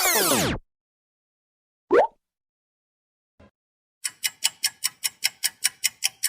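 Clock-ticking sound effect: from about four seconds in, an even run of sharp ticks, about five or six a second. Before it, a dense sweeping sound effect cuts off about half a second in, and a short sliding tone about two seconds in is the loudest moment.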